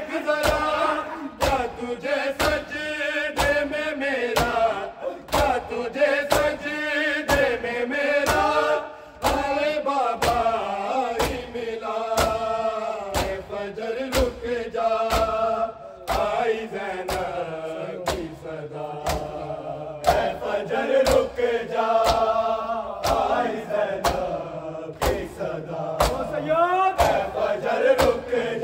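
Men chanting a Urdu noha, a mourning lament, with a crowd of mourners doing matam: hands slapping on bare chests in a steady beat, roughly every two-thirds of a second, under the singing.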